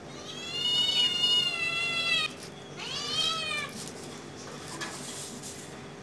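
A cat meowing twice: one long meow, then a shorter one that rises and falls.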